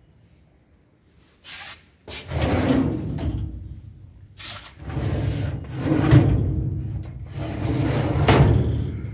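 Sheet-steel almirah door being moved on its hinges, heard as three drawn-out bouts of metal handling noise, each about a second long, with a sharper knock in the last two.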